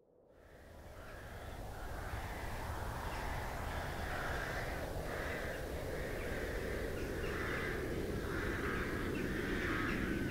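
A flock of crows cawing repeatedly, about once a second, over a steady low outdoor rumble. The sound fades in from silence over the first couple of seconds.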